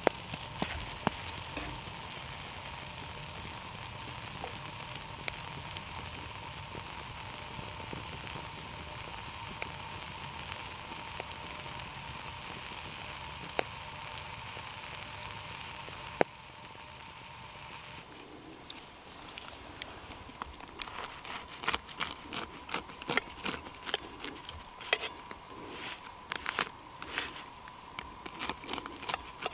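A pancake sizzling steadily in hot oil in a black frying pan. About eighteen seconds in the steady sizzle fades and gives way to irregular popping and crackling ticks.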